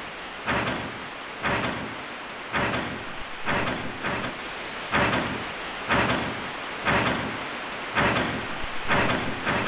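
Sound effect of a giant robotic walking machine's footsteps: a hissing mechanical stomp about once a second, over a steady background hiss.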